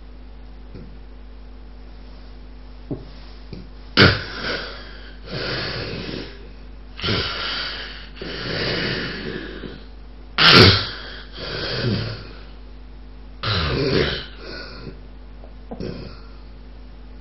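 Sleeper with severe obstructive sleep apnea: about four seconds with no breath heard, then a run of loud, irregular snores and gasps as breathing starts again, the sign of an apnea ending.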